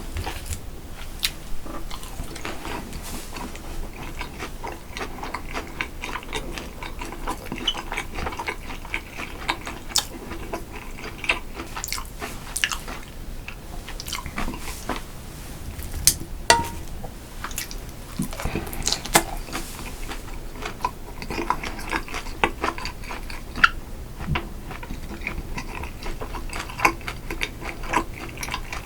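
A person chewing and biting food close to the microphone, with many short sharp clicks and taps scattered throughout.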